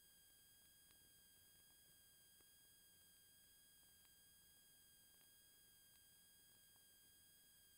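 Near silence: a faint steady hiss with several thin, steady high tones from the recording itself, and a few tiny clicks.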